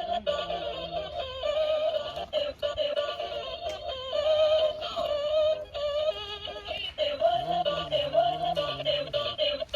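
Electronic music with a synthetic-sounding singing voice, a wavering melody line over a steady backing.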